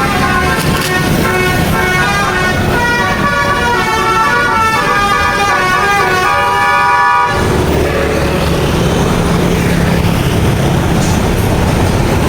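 Basuri telolet bus horn playing a quick tune of changing notes for about seven seconds, then cutting off suddenly, leaving a low steady rumble.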